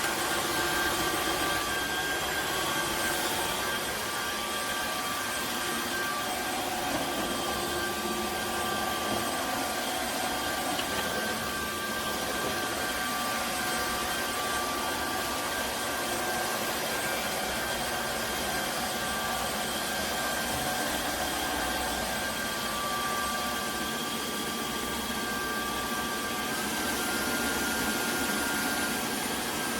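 Tineco Floor One S9 Artist wet-dry vacuum cleaner running steadily: a motor hiss with a steady whine. Near the end the whine steps up in pitch.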